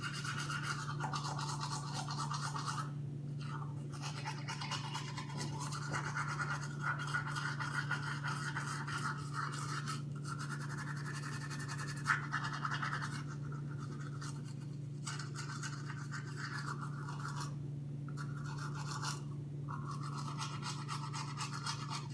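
Teeth being brushed with a toothbrush: a steady scratchy brushing with a few short breaks, over a steady low hum.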